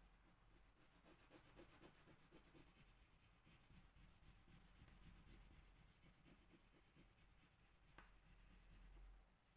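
Faint, continuous scratching of a coloured pencil shading on paper in quick back-and-forth strokes, with a light tick near the end.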